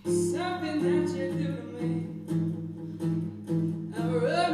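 Gibson Hummingbird acoustic guitar strummed in steady chords under a male tenor voice singing, with a new sung phrase starting right away and another rising phrase near the end.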